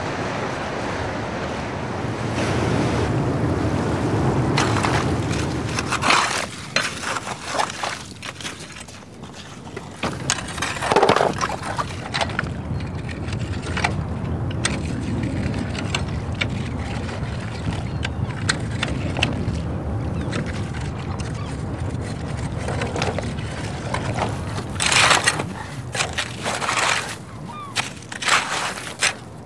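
Shoreline ambience of wind and small waves lapping at the water's edge, a steady wash at first. Later come scattered splashes, knocks and scrapes, clustered near the end.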